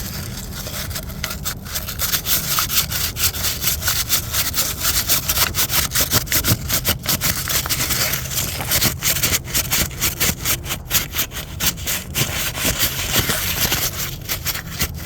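Sandpaper scrubbing back and forth in quick, rhythmic strokes of about three a second, cleaning a part for a new oil filter housing gasket; the scrubbing gets louder about two seconds in.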